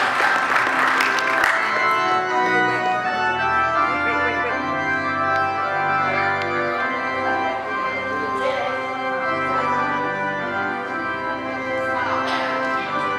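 Organ playing the recessional in held, shifting chords as the couple leaves. Applause fades out over the first second or two.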